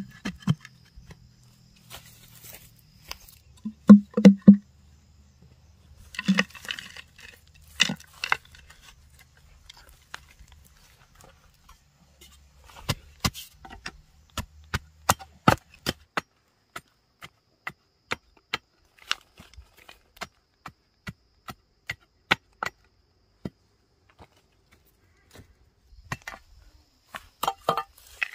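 A blade chopping: a run of sharp, evenly spaced strikes, about one to two a second, clustered mostly in the middle of the stretch. Three loud, short low-pitched sounds come in quick succession about four seconds in.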